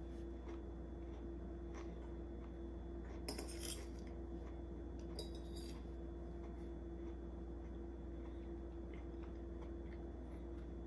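Metal knife and fork scraping and clinking on a plate while cutting a Pop-Tart, with light taps throughout and two louder bursts of scraping, about three seconds in and again about five seconds in. A steady low hum runs underneath.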